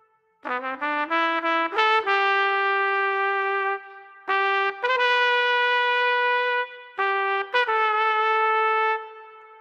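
Solo trumpet playing a slow melody in three phrases, each opening with a few quick rising notes and ending on a long held note that trails off.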